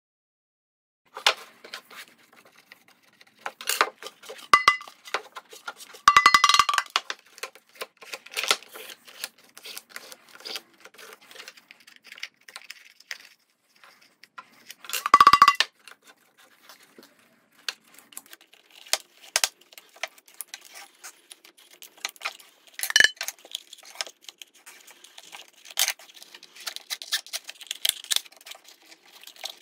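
Handling noise of cord and drum skin being pulled and threaded while a natural skin is laced onto a pandeiro frame: scrapes, rustles and light knocks, with short metallic clinks that ring briefly, loudest about six and fifteen seconds in.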